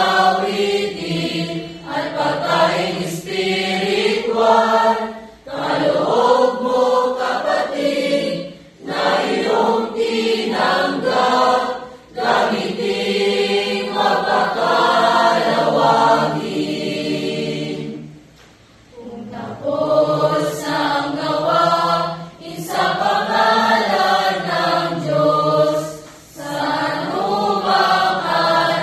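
Mixed choir of young women and men singing together, in sustained phrases broken by short breaths, with a longer pause about 18 seconds in.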